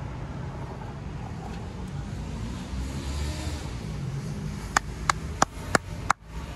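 Steady low rumble of outdoor background noise. A quick run of five sharp clicks comes near the end, about five seconds in.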